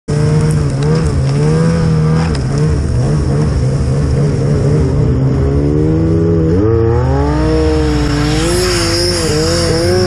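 Turbocharged Yamaha Nytro snowmobile's three-cylinder four-stroke engine running at a steady low speed, then revving up about six and a half seconds in and surging up and down near the end, with a high whine over it.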